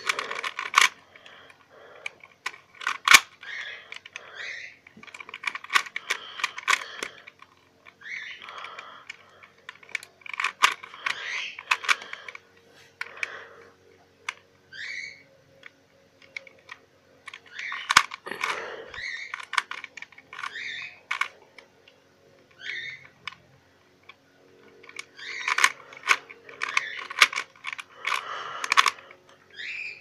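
Plastic Rubik's 3x3 cube being turned quickly by hand: runs of clicking and rattling as the layers snap round, broken by short pauses between sets of moves.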